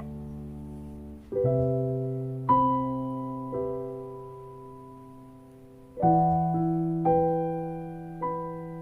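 Slow piano background music: notes and chords struck every second or so, with a longer gap in the middle, each left to ring and fade.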